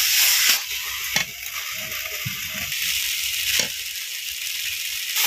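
Taro greens and prawns frying in a wok, a steady sizzle that drops quieter about half a second in, while a metal spatula stirs them and knocks against the pan a few times.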